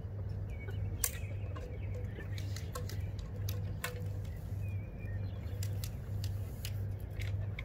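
A lull with a steady low hum and scattered small clicks and taps, with a few faint chirps.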